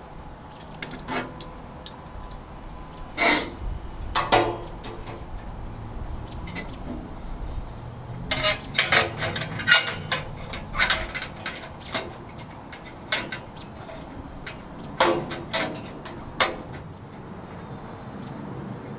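Metal parts clinking and knocking as a grill handle and handle deflector are fitted to the front of a pellet grill with screws and a Phillips screwdriver. Sharp, separate clinks come in a few clusters, with quieter handling between them.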